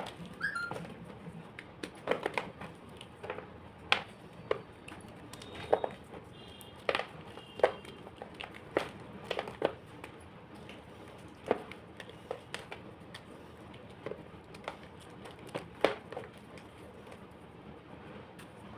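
Homemade gym chalk being crushed, with sharp, irregular crunches and crackles about once or twice a second.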